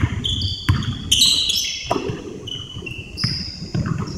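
Basketball dribbled on a hardwood gym floor, a few hollow thuds in the first two seconds, mixed with short high squeaks of sneakers on the court echoing in the gym.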